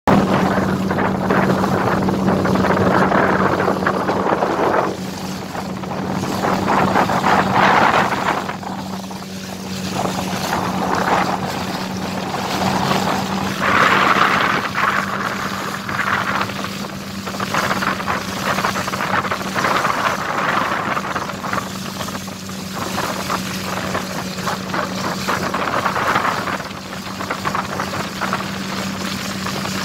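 A steady motor hum at constant speed under a rushing noise that swells and fades every few seconds.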